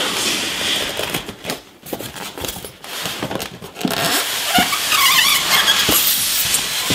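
Polystyrene foam packaging case rubbing and scraping against cardboard as it is handled out of its box, with a few knocks and a burst of high squeaks about five seconds in.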